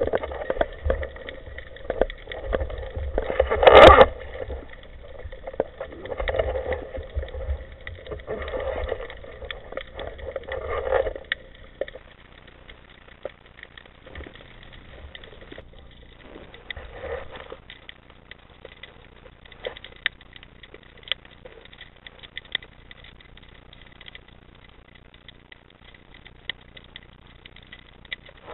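Water sloshing and rushing against an underwater camera's housing near the surface, in irregular surges with one sharp knock about four seconds in. After about twelve seconds it falls to a quiet underwater hiss with scattered faint clicks.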